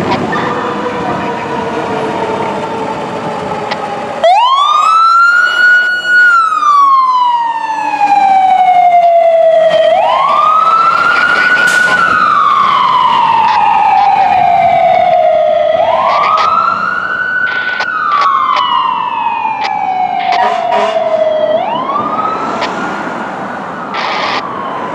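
Fire apparatus siren wailing from about four seconds in. Each cycle climbs quickly, then falls slowly, repeating about every six seconds. Before the siren starts there is vehicle engine noise.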